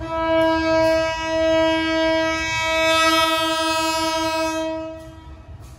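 Locomotive horn sounding a long single-tone blast of about five seconds, briefly broken twice and wavering near the end, over a low rumble.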